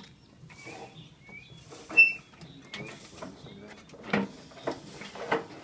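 Metal parts of a harvester attachment being handled and fitted: scattered clicks and knocks, a sharp ringing metal clink about two seconds in, and a few heavier knocks near the end.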